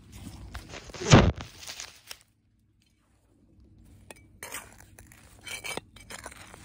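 A loud knock with rustling about a second in as the camera is handled and set down, then a brief dead silence, then soft crunching and scratching of dry, crumbly soil as fingers dig in it to pull weed roots.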